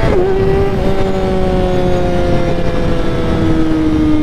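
Kawasaki ZX-6R 636 inline-four engine under way, shifting up from first to second gear: the engine note drops sharply right at the start as the gear changes, picks up slightly about a second in, then falls slowly and steadily in second gear.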